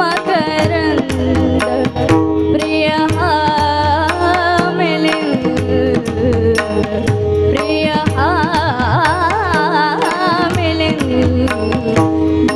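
A woman singing a Marathi devotional bhajan in long, wavering ornamented runs over a steady held drone. Tabla-style drumming and evenly spaced sharp clicks keep time.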